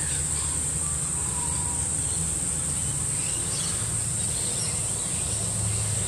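Steady high-pitched insect chorus, one unbroken shrill drone, over a low rumble, with a few faint brief chirps.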